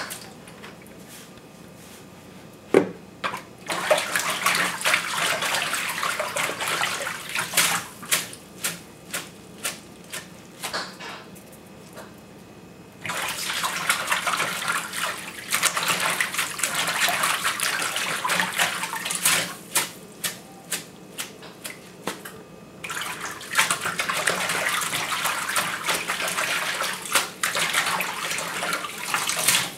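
Kitchen tap running into a stainless steel sink in three stretches of several seconds each, with splashing and sloshing between them as handfuls of leafy greens are rinsed in the water and lifted out.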